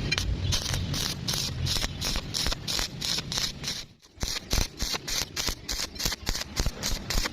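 Rhythmic scraping strokes on metal, about four a second, with a brief break about four seconds in.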